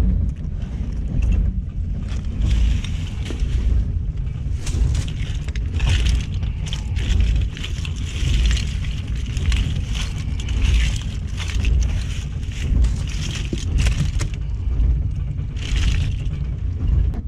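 Boat engine running with a steady low rumble, over a busy crackling and clinking of a heaped catch of mantis shrimp, shells and starfish being handled on deck. The crackling thins out near the end.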